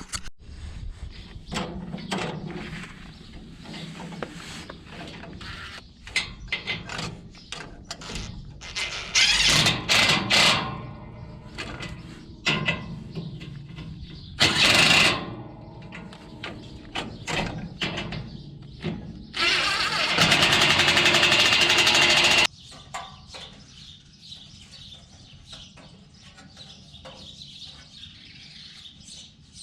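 Hand work on a baler pickup: scattered clanks and knocks of tools and tines against metal, broken by three loud bursts of an impact wrench, the last and longest lasting about three seconds, about two-thirds of the way through.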